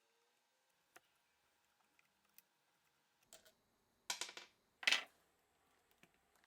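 Scattered light clicks of small hard objects being handled, then two short, loud rattles about four and five seconds in.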